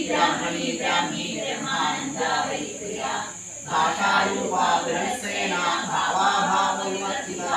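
A male voice chanting Sanskrit mantras in a continuous recitation, in phrases with a short pause about three and a half seconds in.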